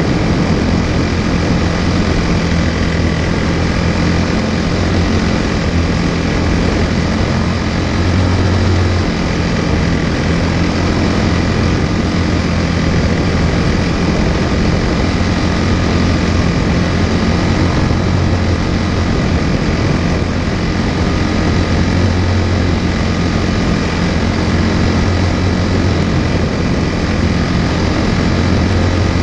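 Quarter midget race car's single-cylinder Briggs & Stratton Animal engine running steadily at speed, heard loud and close from on board, with a low, even pitch that barely changes.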